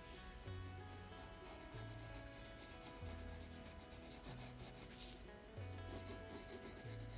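Colored pencil rubbing and scratching on paper in quick shading strokes, over soft background music with a low note that changes about every second.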